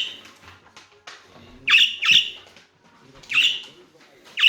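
Budgerigars calling: about five loud, sharp calls spaced roughly a second apart, each dropping quickly in pitch, with quieter chatter between them.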